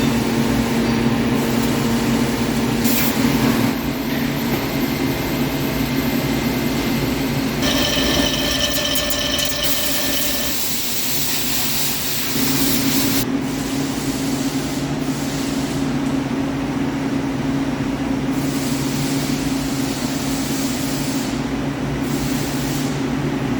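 CNC lathe running while machining a pipeline V roller: a steady machine hum, with a higher whine for about two seconds near the middle and a short lull just after it before the hum picks up again.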